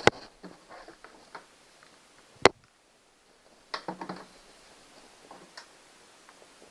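Hand tools and small metal parts being handled: a few light clicks and clatters, with one single sharp click about two and a half seconds in.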